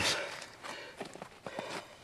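Faint, irregular crunching and small clicks of boots shifting on snow-covered ice.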